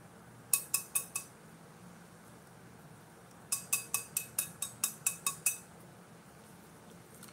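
Stainless steel tumbler tapped sharply, each tap a metallic clink with a brief ring: four taps about half a second in, then a faster run of about ten taps a few seconds later, knocking loose glitter off its coated side.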